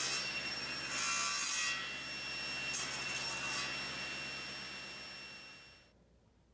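Table saw running with a steady high motor and blade whine while a board clamped upright in a jig is fed through the blade. The cutting noise swells in bursts, and the sound cuts off suddenly near the end.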